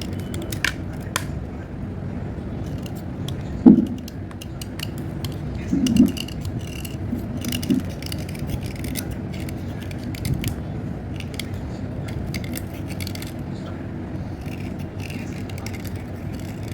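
Slate pencils being handled: many light clicks and scrapes, with a louder knock about four seconds in and another around six seconds, over a steady background hiss.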